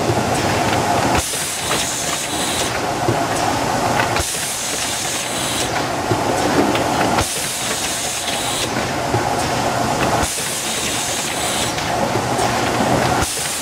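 Packline PDP-4 rotary pouch filling and sealing machine running: continuous mechanical clatter and air hiss that shifts in a regular cycle, with a sharp knock about every three seconds as the machine indexes.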